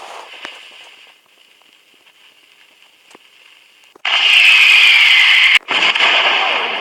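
Diwali firework hissing. After faint crackling, a loud, steady hiss starts suddenly about four seconds in, with a faint falling whistle in it. It breaks off for a moment and starts again near the end.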